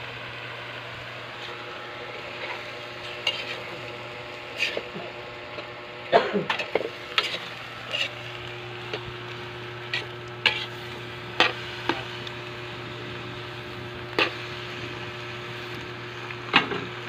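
Diced patola (ridged gourd) being stirred in a wok as it fries, with a steady sizzle and irregular sharp clinks and scrapes of the spatula against the pan, busiest about six to seven seconds in.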